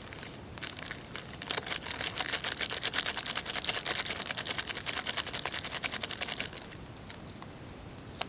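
Rapid, even clicking or rattling, about ten strokes a second, starting about a second and a half in and stopping about five seconds later.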